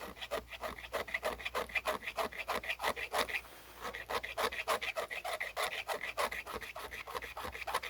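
A sharp edge of a Victorinox Farmer X Alox pocket tool scraping hard wood in quick repeated strokes, about five a second, with a short pause about three and a half seconds in. It is rasping out fine wood dust to catch fire-starting sparks.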